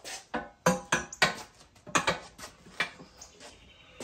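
Steel mount/demount bar on a manual tire changer clanking against the changer's post and the wheel while a tire bead is levered onto the rim. Several sharp metal clanks at uneven intervals, each ringing briefly.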